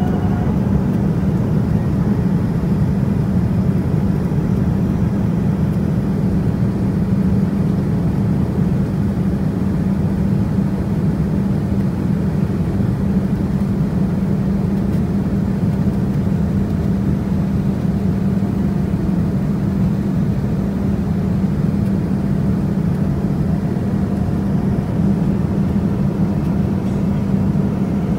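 Steady cabin noise inside a Boeing 787-9 airliner: an even rush with a low hum, without change.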